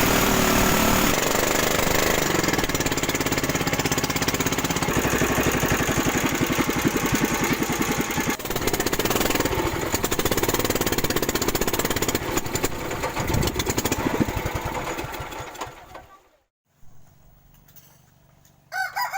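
Small river boat's engine running loudly with a fast, even knock. It fades out after about fifteen seconds, and a rooster starts crowing right at the end.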